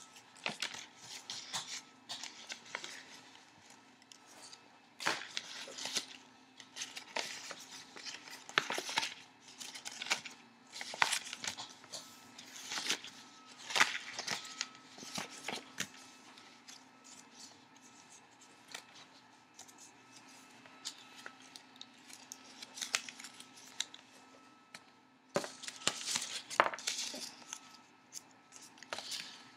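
A sheet of paper being folded and creased by hand, rustling and crackling in irregular bursts of short, sharp strokes as the folds are pressed flat. A faint steady hum runs underneath.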